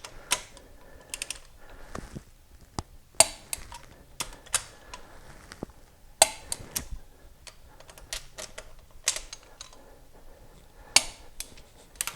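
Torque wrench clicking sharply and irregularly, often in quick pairs, as each intake manifold bolt on an Oldsmobile 455 V8 is rechecked at final torque.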